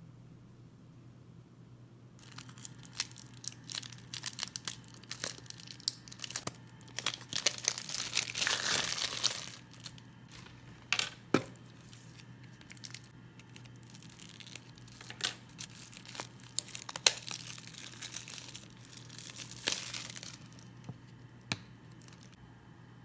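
Packaging being torn open and crinkled by hand: a run of sharp crackles and rips, with a longer, louder tearing stretch around eight to nine seconds in.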